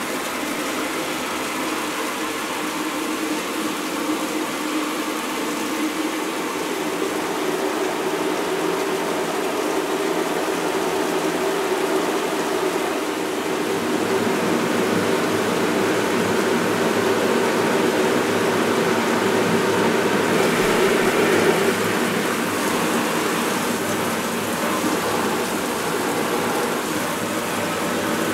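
Water spraying from shower heads and splattering onto hard surfaces and a metal bowl: a dense, steady hiss like heavy rain, with a few steady low tones held beneath it.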